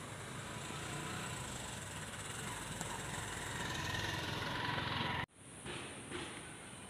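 Steady hum of road traffic that grows louder, then cuts off abruptly about five seconds in, leaving a quieter outdoor background with a couple of faint knocks.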